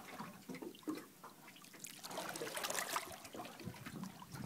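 Water at the surface trickling and splashing close by, with irregular small crackles.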